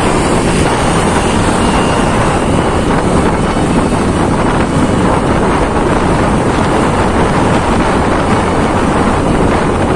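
Steady wind rush buffeting the microphone of a camera riding along on a moving motorbike, with road and engine noise mixed in beneath.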